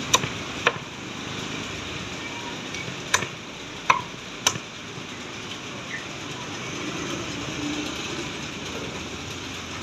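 Meat cleaver chopping through roast duck on a thick wooden chopping block: five sharp chops in the first half, irregularly spaced, then no more, over a steady background hum.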